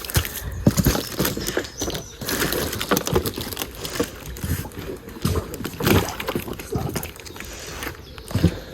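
Water sloshing and gurgling around a small homemade cardboard boat, with irregular knocks and bumps scattered throughout.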